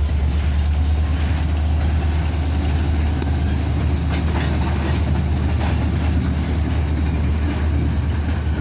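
Norfolk Southern freight train rolling past with a steady low rumble and a few clicks from the wheels over the rails around the middle.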